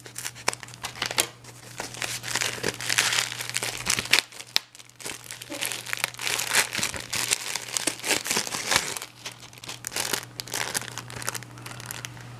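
Scissors snipping through a foam-lined plastic mailer, then plastic packaging and a cellophane sleeve crinkling and rustling as they are handled and pulled open, with a short lull partway through.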